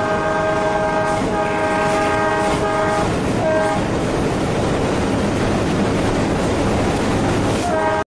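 Indian Railways locomotive horn sounding in several blasts over the first three seconds, a short toot about three and a half seconds in and another near the end, over the steady running noise of a passenger train on the move.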